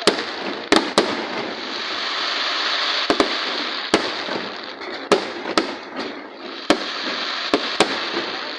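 Fireworks display: about a dozen sharp bangs at irregular intervals over a continuous hiss.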